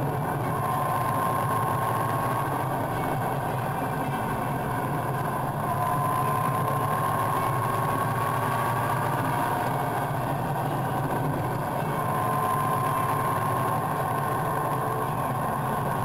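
Touring motorcycle engine running steadily at road speed, heard with wind and road noise from behind the windscreen. A faint whine near the top rises slightly in pitch a couple of times.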